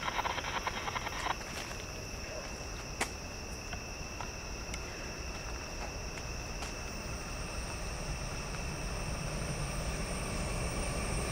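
Insects chirring steadily at two high pitches, while the low rumble of an approaching train builds toward the end. A brief rapid crunching runs through the first second or so.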